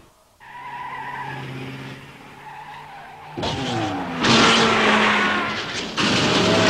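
Animated soundtrack effects of cars speeding down a road in a chase: first a steady, fairly quiet engine hum, then, about three and a half seconds in, a much louder rush of engine and tyre noise that falls in pitch as a vehicle goes by.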